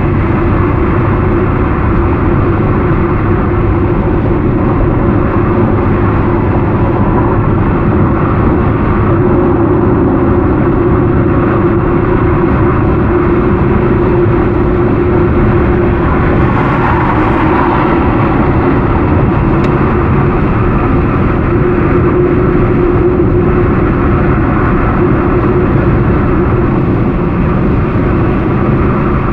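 Steady road, tyre and engine noise of a car cruising at highway speed, heard from inside the cabin.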